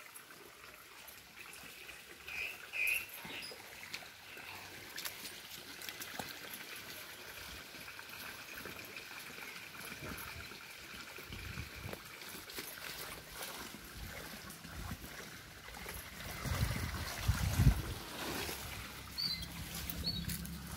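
Water trickling from a pipe into a muddy puddle, a steady soft flow. Two short high chirps sound about two to three seconds in, and a louder low rumble comes in near the end.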